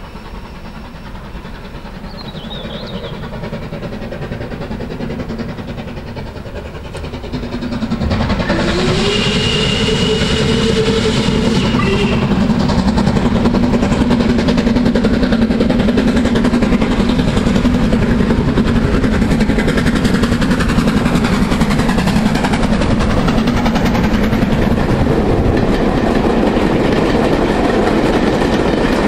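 A steam locomotive, an LMS Black Five, approaching with its train, growing louder, then running past with a loud steady rumble. A whistle sounds for a couple of seconds, rising slightly in pitch, about nine seconds in.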